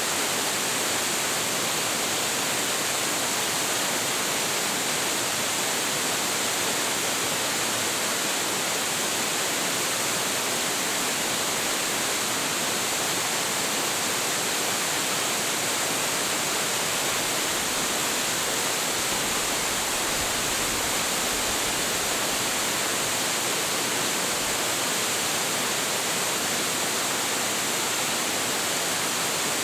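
A tall waterfall with a heavy flow of water: a steady, even rush of falling water that does not change.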